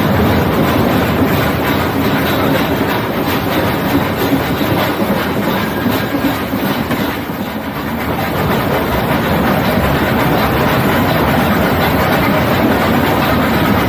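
Nilgiri Mountain Railway coach running along the line, a steady rumble of wheels on rail with a clickety-clack over the rail joints, dipping briefly about halfway through.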